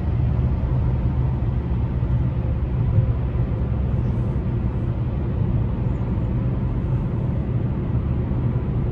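Steady low rumble of road and engine noise inside a Ford Focus's cabin while driving.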